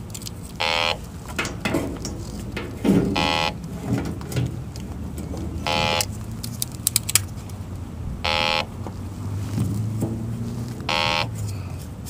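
Electronic refrigerant leak detector beeping: a short, high beep about every two and a half seconds, five times, as it is worked around a leaking service valve cap.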